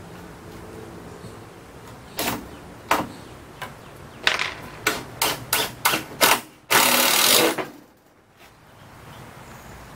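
Handheld power drill driving screws into a wooden frame: a string of short trigger bursts, then one longer run of about a second near the end.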